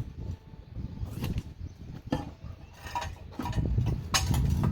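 Irregular knocks, scrapes and rubbing from handling an ATV tire and working its lubed bead onto the rim on a manual tire changer, with several sharp knocks spread through.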